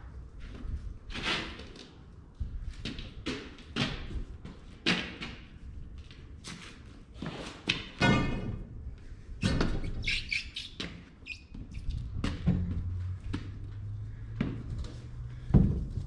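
Irregular knocks and thuds of a large tractor dual tire being stood up and rolled across a concrete floor, with a few short squeaks about two-thirds of the way through.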